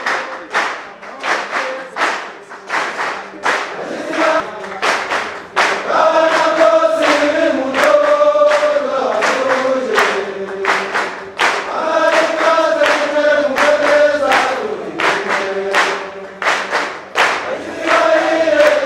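A choir singing a song in unison over a steady percussive beat. The voices swell and grow louder about six seconds in.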